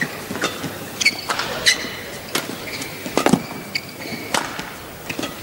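Badminton rackets striking a shuttlecock back and forth in a fast rally, a sharp hit about every half second to second. Between the hits, players' shoes squeak briefly on the court mat.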